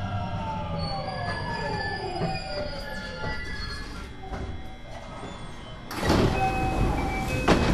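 JR West 207 series train's Mitsubishi IGBT VVVF inverter whining down in several falling tones as the train brakes to a stop. About six seconds in, a sudden loud rush of air as the sliding doors start to open, with a clunk near the end.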